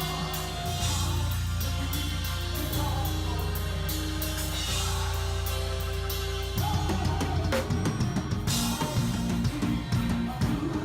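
A band playing with a drum kit: held low chords and long notes under steady cymbal strokes, then about six and a half seconds in the drums and bass break into a busier, choppier groove.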